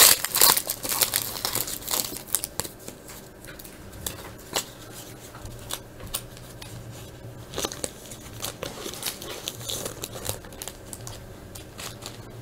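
Foil wrapper of a 1999 Upper Deck SP Authentic basketball card pack being torn open and crinkled, busiest in the first two seconds, then scattered faint crinkles and ticks as the pack and cards are handled.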